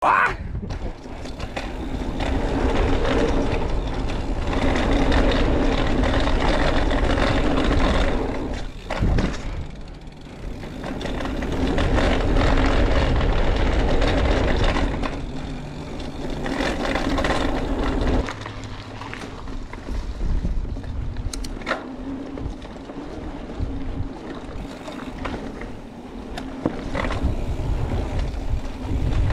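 Mountain bike riding a dirt trail: knobby tyres rolling and the bike rattling over the ground, louder and quieter as the pace changes, with a few sharp clicks.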